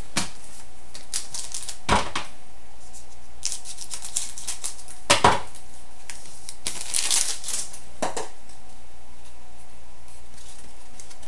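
Packs of Upper Deck SPx hockey cards being opened and handled: a wrapper crinkling and cards shuffling, with a few sharp clicks and taps a couple of seconds apart.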